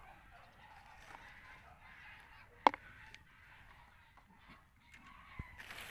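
Faint honking of fowl, with one sharp click about two and a half seconds in.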